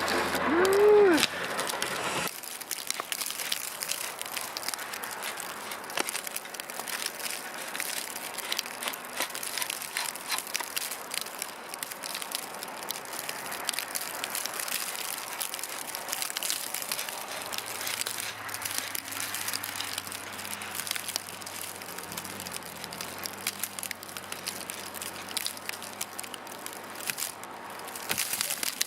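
Snow crunching and crackling underfoot in a long run of irregular short crunches, over a steady gritty hiss. It opens with a brief louder sound with a gliding tone that stops about two seconds in.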